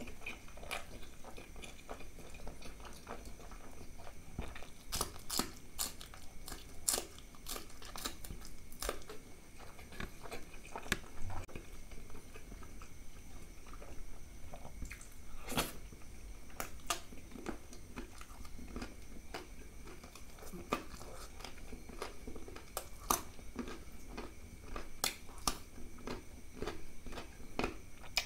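Close-miked eating sounds: a man chewing and smacking his lips as he eats by hand, with sharp wet clicks coming at irregular intervals throughout.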